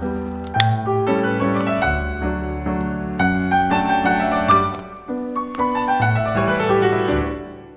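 Background piano music: a gentle tune of struck notes that ring and fade, with one sharp click about half a second in.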